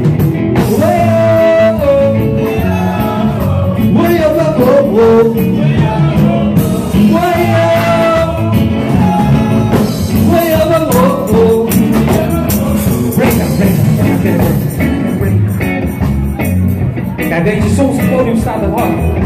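Live rock band playing: electric and acoustic guitars, bass guitar and a drum kit, with a singer's voice carrying the melody over them.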